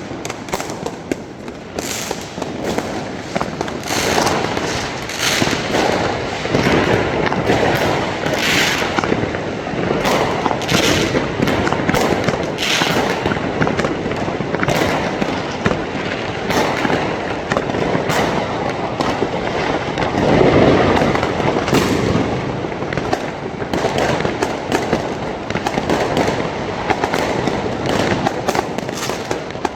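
New Year's Eve fireworks and firecrackers going off all around without a break: a dense, continuous crackle of many overlapping bangs and pops, heaviest about a third of the way in and again about two thirds through.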